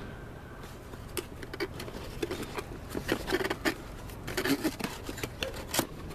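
Plastic packaging crinkling and rustling, with irregular light clicks and taps as small boxed items are handled and unwrapped. A sharper click comes near the end.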